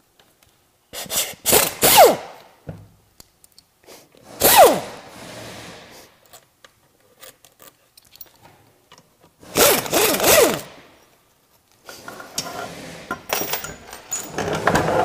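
Pneumatic air ratchet running in about four short bursts, each falling in pitch as it runs, while undoing the 10 mm bolts on a CVT transmission's valve body.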